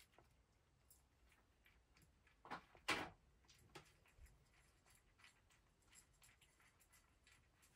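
A cat eating from its food dish: a few faint clicks and knocks, the loudest pair about two and a half and three seconds in, otherwise near silence.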